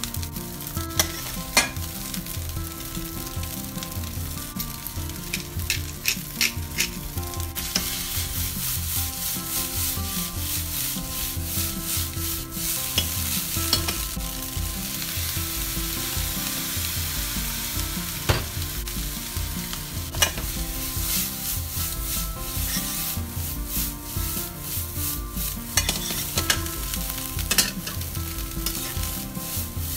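Fried rice sizzling in a frying pan while a flat spatula stirs, tosses and scrapes it, with many sharp clicks of the spatula against the pan. For a few seconds around the middle there are fewer clicks and mostly the steady sizzle.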